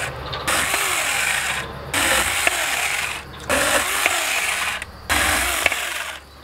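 Saker 4-inch 20-volt cordless mini electric chainsaw slicing thin rounds off a small oak log. It runs in about five bursts of a second or so, each with a short pause between, and stops near the end.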